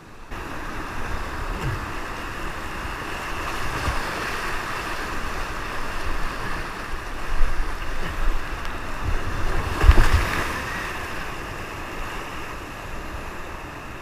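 Whitewater rapid rushing and splashing around a kayak, picked up by an action camera riding on the boat's paddler, with low thumps of water and wind buffeting the microphone. The splashing surges loudest about seven and ten seconds in.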